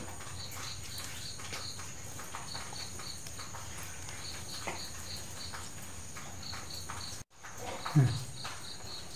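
An insect chirping in short regular runs of three to five high pulses over a steady low hum, with faint wet scraping as rice batter is scooped by hand from a stone wet grinder's drum; a single thump near the end.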